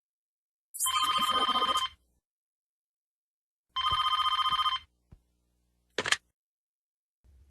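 Telephone bell ringing in two bursts of about a second each, three seconds apart, followed by a short sharp noise a couple of seconds later.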